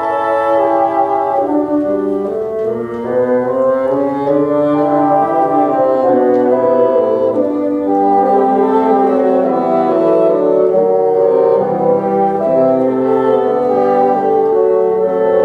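Bassoon ensemble playing a piece in several parts, sustained notes moving together in harmony.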